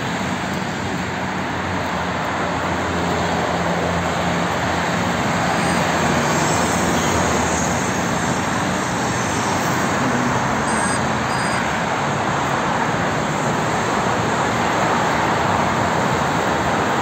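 Steady road traffic noise from a busy multi-lane highway below: the mixed sound of many cars and a bus passing, with a low engine drone underneath.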